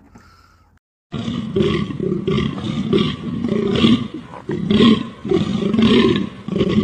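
Large animal roaring in a run of short, repeated calls about half a second apart, starting about a second in.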